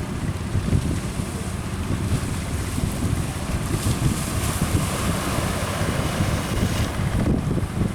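Strong wind rumbling on the microphone over rough sea, with waves and a faint low hum like a boat motor. A wash of surf or spray swells up about halfway through and fades near the end.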